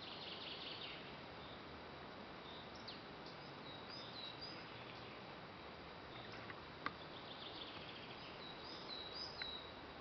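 Forest ambience: a faint steady hiss with small birds chirping and twittering now and then, busiest near the start and again near the end. A single sharp click about seven seconds in.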